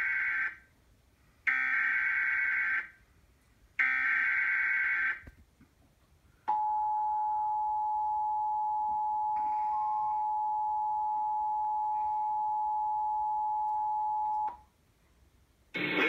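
Emergency Alert System header tones: the end of one short burst of warbling digital data and two more like it, about a second and a half each with short gaps between. Then the EAS two-tone attention signal sounds as a steady chord for about eight seconds and cuts off. It is played through a television speaker and marks the start of an EAS Required Monthly Test.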